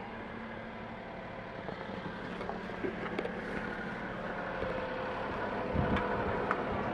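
A vehicle engine running steadily, with a few light clicks and taps; it grows a little louder over the last couple of seconds.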